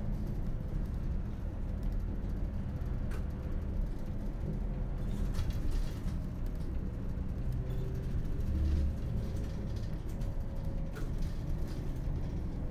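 Engine and road rumble inside a moving city bus, heard from the cabin: a steady low drone with a few light clicks and rattles.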